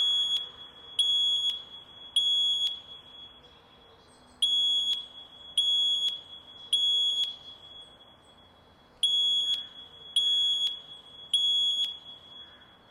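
Fire alarm sounding the temporal-three evacuation signal: three high beeps of about half a second each, a second apart, then a short pause, repeated three times.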